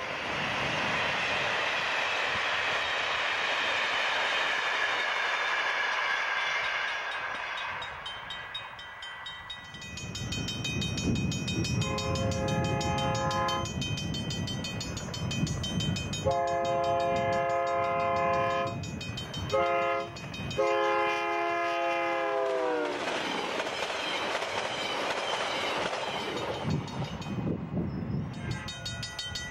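VIA Rail F40PH diesel passenger train rolling past over the rails, the noise fading away after about eight seconds. Then an approaching diesel locomotive sounds its horn in several long and short blasts, and the last blast drops in pitch as it passes, followed by the rumble of the train going by.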